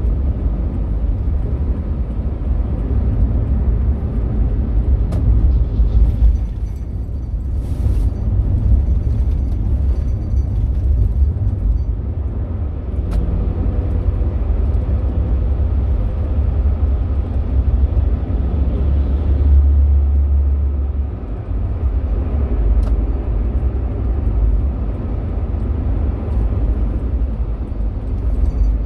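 Steady low rumble of a car's engine and tyres driving at highway speed. A deeper hum swells for a couple of seconds about two-thirds of the way through.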